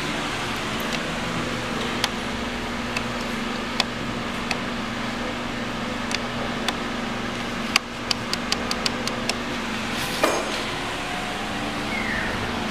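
A steady low hum under an even hiss, with scattered sharp clicks, a quick run of about ten clicks around eight seconds in, and a louder knock about ten seconds in.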